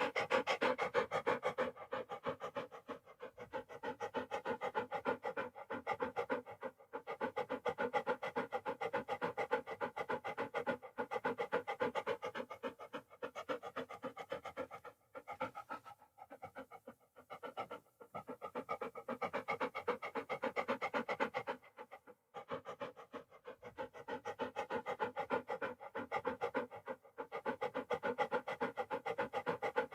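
Dog panting rapidly and steadily in quick, even breaths, pausing briefly a few times.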